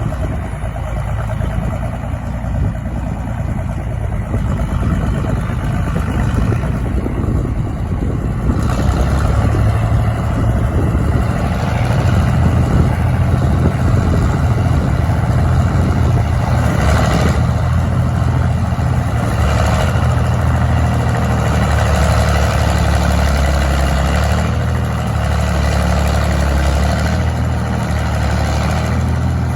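John Deere 4230 tractor's six-cylinder diesel engine running steadily while powering a Stumpster tree saw cutting a honey locust; the engine gets louder about eight seconds in.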